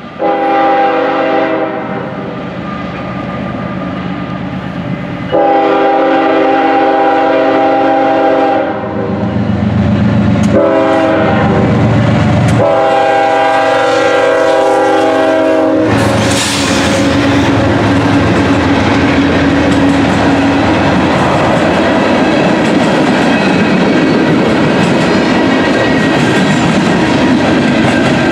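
Norfolk Southern diesel freight locomotive's multi-note air horn blowing long, long, short, long, the grade-crossing signal. The locomotives pass about 16 seconds in with a loud surge, followed by the steady rumble and clatter of freight cars rolling by.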